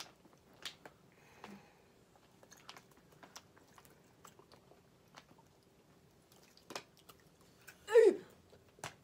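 Faint crunching and chewing of dried, barbecue-flavoured insect larvae in the mouth: scattered small crisp clicks, a few sharper ones. A brief vocal sound breaks in about eight seconds in.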